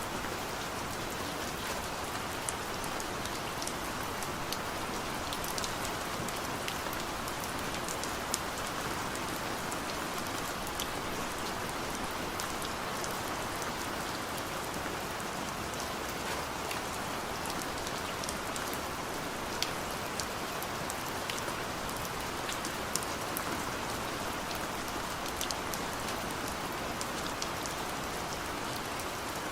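Steady rain falling, with many separate drops pattering on a nearby surface.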